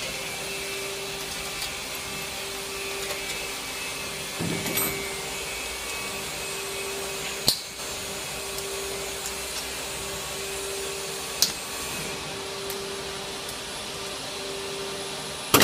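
Steady machinery hum and hiss with a tone that pulses on and off in a regular beat, while metal machine parts are handled by hand, giving a few sharp clicks about halfway through and near the end.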